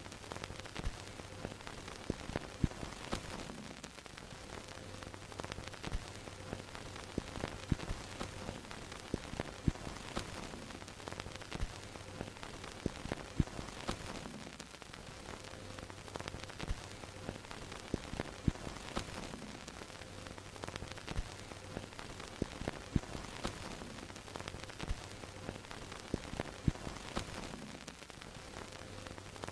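Vintage film projector sound effect: a steady hiss with irregular crackles and pops, over a low projector hum that fades in and out every few seconds.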